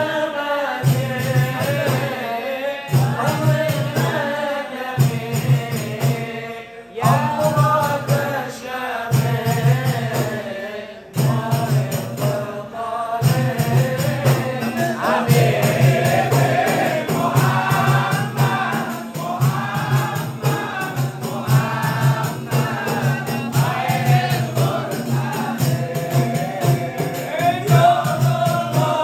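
A group of men singing a sholawat (Islamic devotional chant) together over a steady percussion beat.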